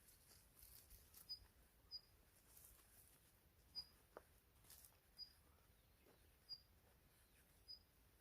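Near silence, with a faint, short, high chirp from a small bird repeating about once a second, and one faint tick about four seconds in.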